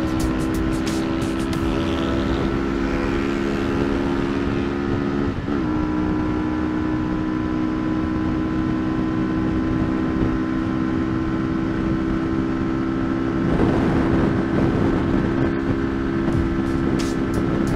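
Yamaha R15 V2's single-cylinder four-stroke engine running at a steady cruising pitch under way, with wind rush. The engine note dips and comes back briefly about five seconds in, and a louder rush of noise comes about three-quarters of the way through.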